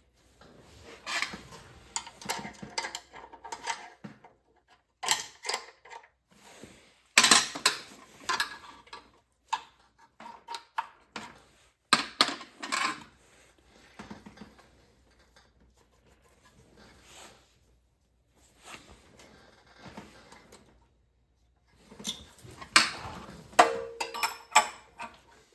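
Hand tools clinking, tapping and scraping against the metal parts of a disassembled Predator 212 engine: irregular clanks and rattles with short pauses, the loudest clanks about seven seconds in, at twelve seconds and near the end.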